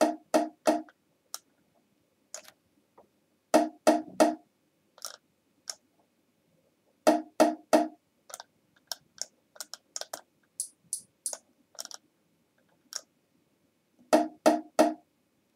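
Bongo track playing back solo: clusters of three or four quick, loud hand strikes a few seconds apart, with softer single hits between. The top end is lifted slightly by an EQ band near 9 kHz because the bongos sounded too dull.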